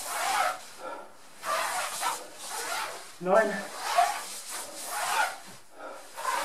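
Heavy breathing of a person exercising in a lion mascot costume, a loud breath about every second, with the costume rubbing and shuffling on the floor mat.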